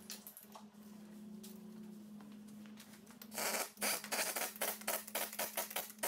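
Rapid, uneven metallic clicking of a hand ratchet running lug nuts onto a wheel hub. It starts a little over three seconds in, after a stretch of faint knocks.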